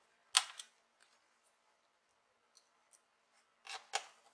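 A few sharp clicks and taps of a small screwdriver handled against a laptop's bottom case as screws are fastened: one sharp click about half a second in, faint ticks in the middle, and a quick cluster of clicks near the end.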